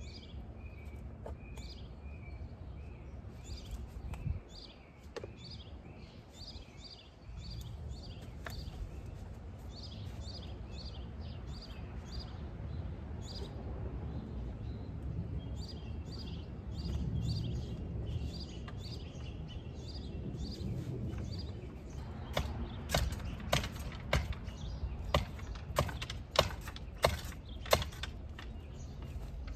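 Outdoor ambience with a low steady rumble and small birds chirping over and over. From about three-quarters of the way in, a run of sharp knocks and clacks sets in and is the loudest thing heard.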